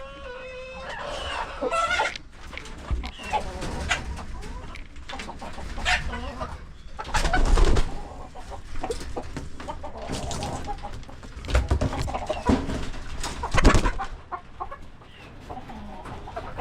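Chickens clucking and calling, with a longer wavering call near the start. A few dull low thumps stand out, the loudest near the middle and toward the end.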